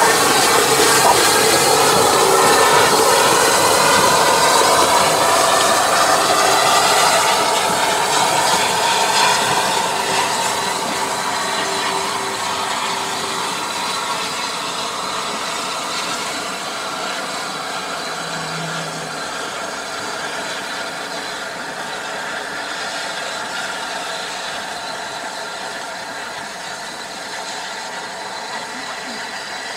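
Steam locomotive giving off a steady hiss of steam, loud at first and slowly dying away.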